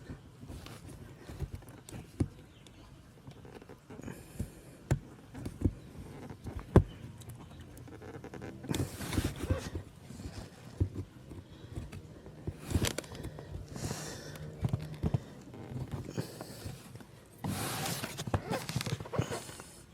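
Airbag wiring connectors under a car seat being handled and unplugged by hand: scattered clicks and knocks, with a few short bursts of rustling and scraping.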